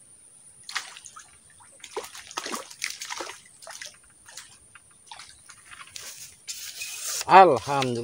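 A small hooked fish splashing and thrashing at the surface of duckweed-covered swamp water, in a run of short splashes. Near the end comes a brief swishing hiss, then a short pitched vocal sound from a person, the loudest sound here.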